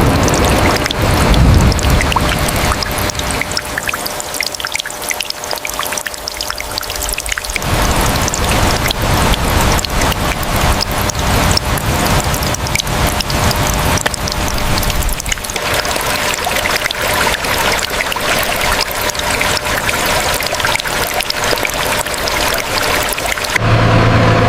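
Rain and running water: a dense, steady patter with pouring and trickling. Near the end it gives way to a steady low engine hum.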